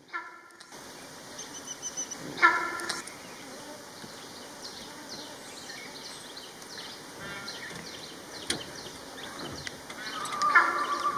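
Forest ambience: a steady background of insects and small birds, broken by a few short pitched calls, the last and longest one near the end.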